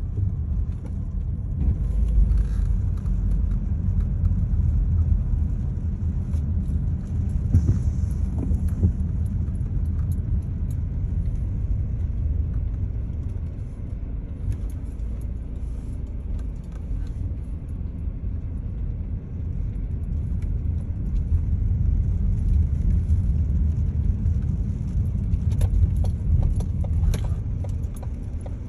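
Steady low rumble of a car driving, swelling and easing gently, with a few faint clicks.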